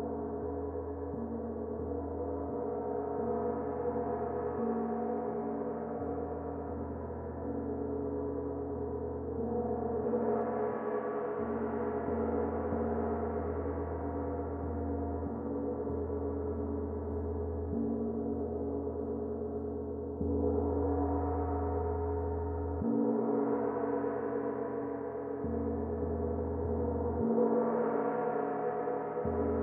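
Zildjian gong played with a mallet in gentle, repeated strokes, its many overlapping tones ringing on without a break and swelling again with each new stroke, several times over.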